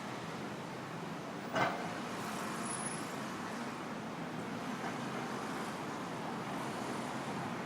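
Steady city street traffic noise, an even wash of passing vehicles. About a second and a half in there is one brief sharp knock, and a fainter one near the five-second mark.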